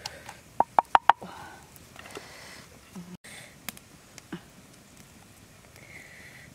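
Pestle pounding chillies in a mortar: a quick run of about four sharp knocks about a second in, then the pounding stops, leaving only a few faint taps.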